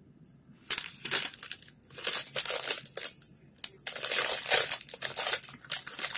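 Crinkly plastic Tayto Meanies crisp packet being squeezed and pulled open by hand: a string of loud crinkling bursts starting about a second in, with short pauses.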